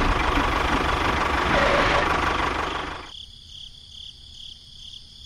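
Battery-powered toy train running on plastic track, a loud steady mechanical whirr and rattle that cuts off suddenly about three seconds in. After the cut comes a much quieter background with a regular high chirping.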